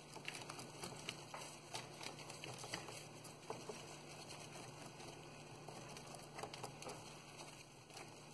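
Faint, irregular crackling and rustling of potting soil and pepper-plant leaves and stems as hands pull the clumped seedlings apart, over a low steady hum.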